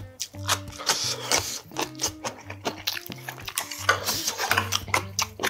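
Close-miked chewing and eating of grilled pork back ribs, with many short sharp clicks and smacks, over background music with held bass notes.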